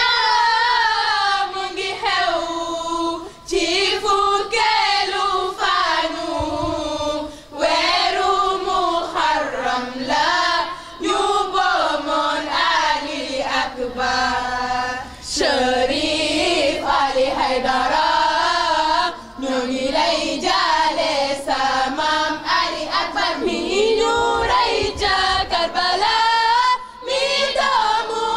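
A chorus of women and girls chanting a latmiya, a Shia mourning lament for Imam Hussein, in phrases that rise and fall with short breaks between them.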